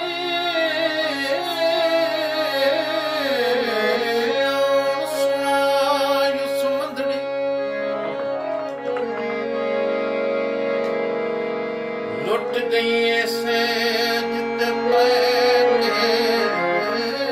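A man singing a Punjabi folk song in a wavering, ornamented voice to his own harmonium accompaniment. The voice drops out for a few seconds in the middle while the harmonium holds its notes, then comes back in.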